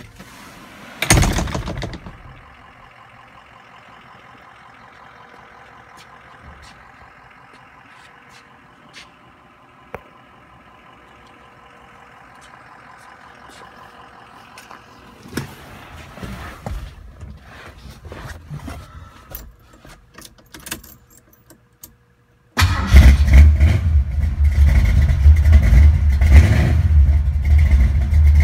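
A loud thump about a second in, then a faint steady hum and scattered clicks and rustling. With about six seconds left, the 1970 Ford Maverick's inline-six engine starts abruptly and runs loudly with a deep rumble.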